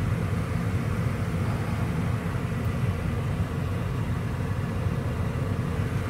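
Steady low rumble of a running car heard from inside its cabin.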